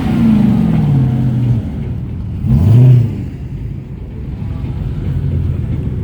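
Car engine revving: the revs fall away over the first second and a half, a short, sharp rev blip comes about two and a half seconds in and is the loudest moment, then the engine settles to a steady idle.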